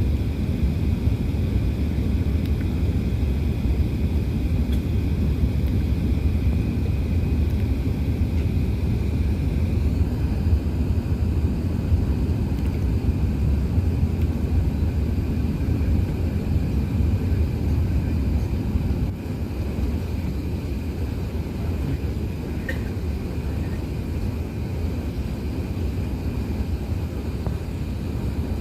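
Airbus A380 cabin noise heard from an economy seat: a steady low rumble of engines and airflow, dropping slightly in level about two-thirds of the way through.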